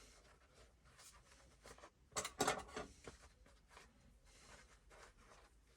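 Quiet handling of the camcorder bag and its strap clips, with a short cluster of sharp clicks about two seconds in and a few faint ticks after.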